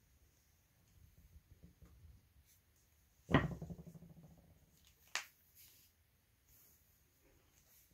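Plastic toy figures being handled on a board: one loud knock about three seconds in that rings on briefly as a figure or its stand strikes the board, then a lighter click about two seconds later.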